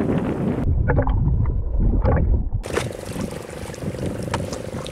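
Wind rumbling on the microphone and sea noise aboard a small fishing boat; from about halfway through a steady engine hum joins in.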